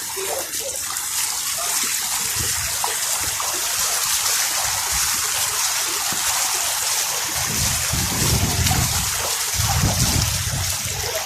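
Floodwater flowing steadily, a continuous rushing hiss, with low rumbles coming and going in the second half.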